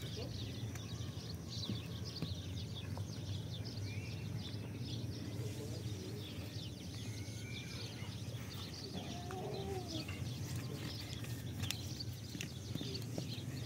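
Outdoor ambience: many small birds chirping, with a few short calls here and there over a steady low hum.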